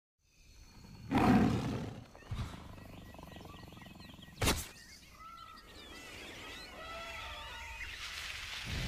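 Sound-effect intro: a big cat roaring about a second in, a sharp crack midway, then birds chirping over a faint jungle-like ambience.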